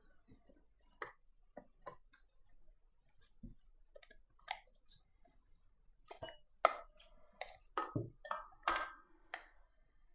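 Stainless-steel mixer-grinder jar being taken off its base, set down and opened, then a spoon scraping the ground masala paste inside. Scattered light clicks, metal clinks and scrapes that get busier in the second half.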